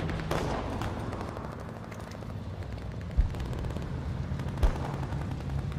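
Distant battle sounds: a steady low rumble of gunfire and shelling, with two sharp thuds, about three seconds in and again a second and a half later.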